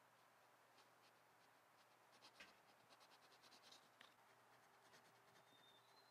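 Near silence: faint scratching and a few light ticks over a low steady hum.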